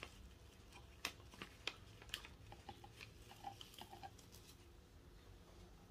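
Faint scattered clicks and crinkles of a plastic packet of dried flowers being handled as flowers are picked out of it, over quiet room tone.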